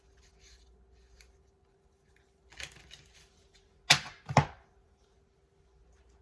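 Tarot cards handled on a table: light clicks, a brief rustle about two and a half seconds in, then two sharp taps about half a second apart, over a faint steady hum.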